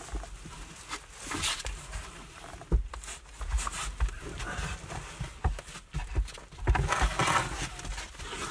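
A man crawling through a cramped loft: irregular knocks and thuds of knees and hands on the boards and joists, with rustling of clothes and insulation and heavy breathing.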